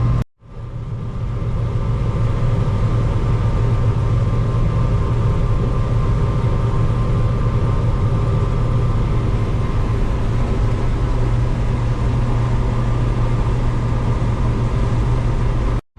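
Combine harvester running steadily under load while harvesting corn, a constant low engine hum with machinery noise over it.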